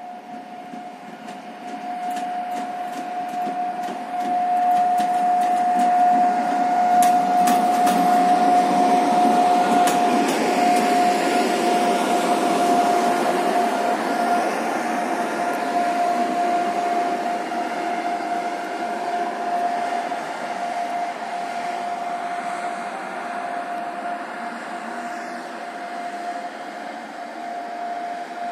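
Siemens ER20CF diesel-electric locomotive passing on its own. Its sound swells as it draws level and fades as it moves away, with a steady high-pitched whine throughout and a run of sharp clicks while it is close.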